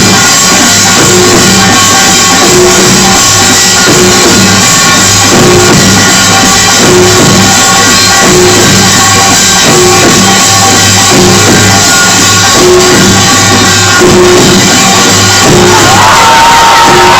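Korean pungmul percussion music playing loudly with a steady, repeating beat. Near the end a high held tone slides in and holds.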